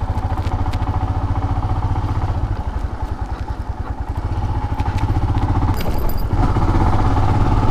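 Motorcycle engine running as the bike rides along a dirt track, with a steady low pulsing beat. It eases off about three seconds in and picks up, louder, near the end.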